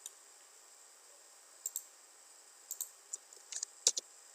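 Computer mouse and keyboard clicks: a couple of sharp clicks about one and a half seconds in, then a scattering of quick clicks in the last second and a half.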